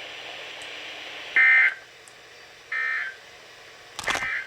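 Three short bursts of EAS digital data tones, the warbling end-of-message signal that closes the alert, about a second apart, the first the loudest. A sharp click comes with the third burst, over a steady faint hiss.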